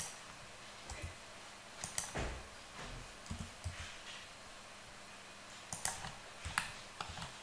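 Scattered clicks of a computer keyboard and mouse, about seven sharp clicks spread over several seconds, some in quick pairs, with a few soft low knocks between them.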